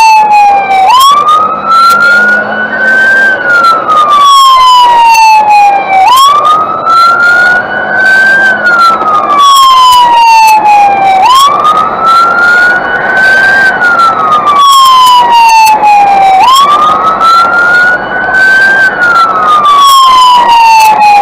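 Fire engine siren wailing: the tone jumps up, climbs slowly to its peak, then sinks slowly, repeating about every five seconds.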